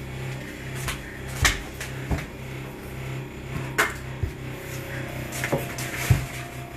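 Rolling pin rolling out a stiff shortbread dough (broyé du Poitou) on a board, with scattered knocks and clicks as the pin bumps and is shifted by hand.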